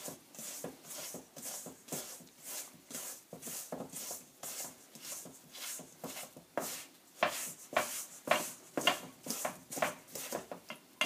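Hands handling things in a kitchen: an irregular run of soft taps, rubs and light knocks, several a second, with a few sharper clicks.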